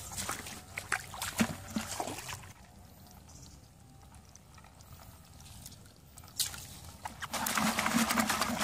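A plastic bucket of live field crabs being set down and handled: knocks and clicks of shells and claws against the bucket in the first couple of seconds. A louder clatter and rustle starts near the end as a hand reaches into it, with a little water sloshing.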